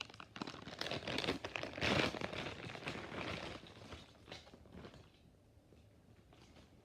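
Crinkling and crackling of a Beyblade toy's packaging being handled and opened, loudest about two seconds in, fading out after about five seconds.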